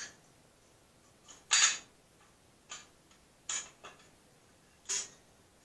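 A handful of short, separate clicks and light rustles as a new lawn-mower muffler and its small metal hardware are handled and turned over, the loudest about a second and a half in.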